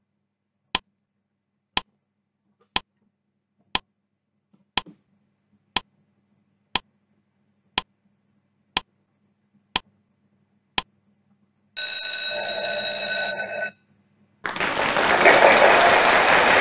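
Countdown-timer sound effect: a clock-like tick once a second, eleven times, then a ringing, bell-like alarm for about a second and a half. A moment later comes a loud, even rush of noise, the loudest sound here.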